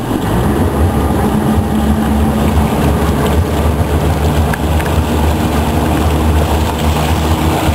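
Motorboat engine running steadily while towing a rider, a low even hum with the rush of wind and water around it, heard from on board.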